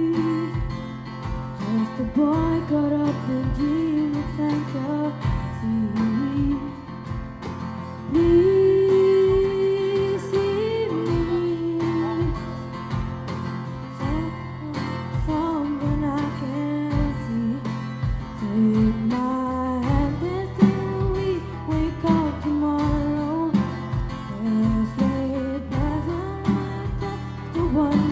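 Live band playing a pop-rock song: a boy singing lead into a microphone over guitars, bass and a drum kit.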